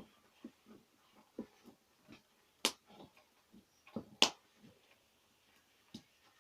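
Wooden cooking stick stirring and pressing thick ugali in a pot: a run of soft, dull knocks, about two a second, with two sharp clacks a second and a half apart near the middle.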